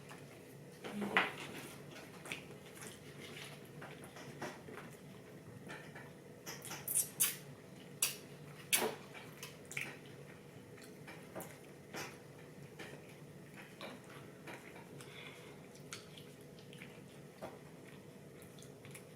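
Eating sounds from a takeout sushi meal: scattered clicks and taps of utensils on plastic takeout containers, a cluster of several about seven to nine seconds in, with soft chewing and mouth sounds between them.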